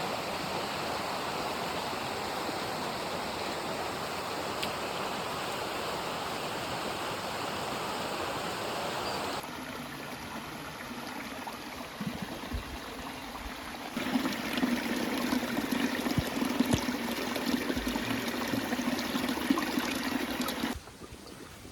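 A stream running, a steady rush of water. The sound changes abruptly at about nine seconds and again near fourteen and twenty-one seconds, with scattered knocks in the later part.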